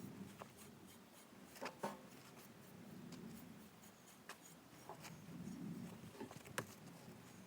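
Faint scratchy rubbing of a grooming brush stroked over a horse's coat, with scattered sharp clicks and taps.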